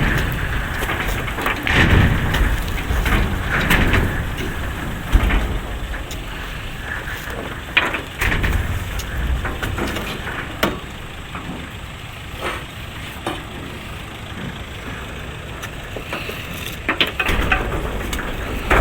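Oil palm fruit bunches being unloaded from a truck: irregular heavy thuds and knocks over a rumbling running noise.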